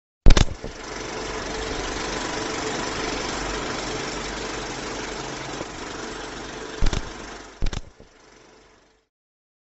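Film projector running, as a sound effect: it starts with a loud click, runs steadily with a hum, then gives two clicks near the end and winds down to a stop.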